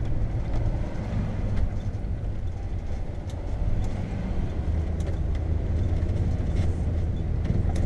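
Cab interior of a 1991 Tioga Class C motorhome driving slowly through town: a steady low engine and road rumble.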